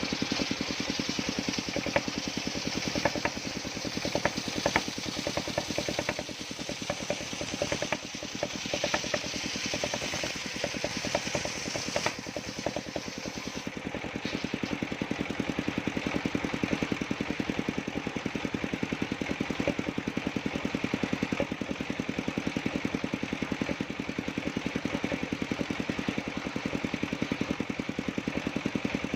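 Engine-driven circular sawmill running steadily, with a fast, even engine rhythm. Scattered sharp ticks and knocks come through the first half, and the high hiss eases off about halfway through.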